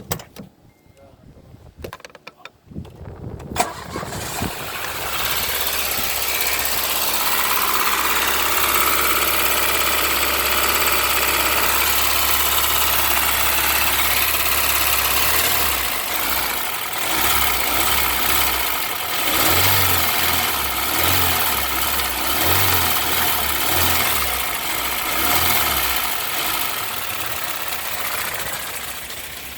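Peugeot 309 SRi's 1.6 XU5JA petrol engine starting about four seconds in, then idling steadily on a Bosch air flow meter under test. In the second half the engine note rises and falls in a regular pulse about every second and a half.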